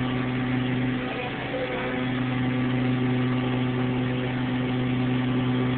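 Steady electric hum of CNC machine-shop machinery: a low drone with several higher steady tones above it. The strongest upper tone drops out briefly about a second in, then returns.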